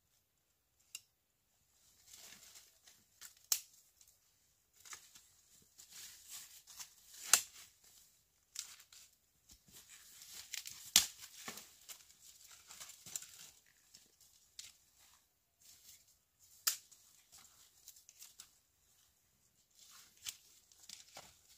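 Irregular rustling and tearing, broken by about six sharp snaps spread across the stretch.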